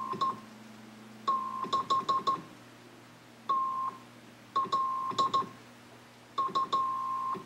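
A Morse code call sign sent by hand on a telegraph key and heard as a beep of about 1 kHz from a separate receiver monitoring the Heathkit Cheyenne MT-1 transmitter's CW signal on 40 metres. It comes in groups of short dots and longer dashes with pauses between letters, each element marked by a sharp click of the key, over a faint low hum.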